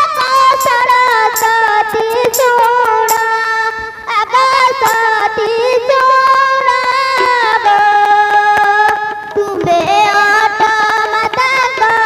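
A high female voice singing long, held, wavering notes in a slow stage song, with light percussion strikes behind it in the first few seconds.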